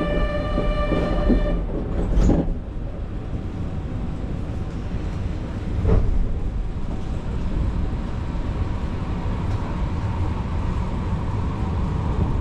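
Kyoto subway train running, a steady low rumble with two knocks, about two seconds and about six seconds in. A steady multi-tone electronic chime is heard at the start and stops about a second and a half in.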